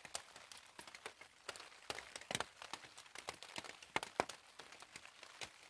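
Rain dripping onto a plastic tarp shelter: scattered, irregular light ticks, with a few louder taps in the middle.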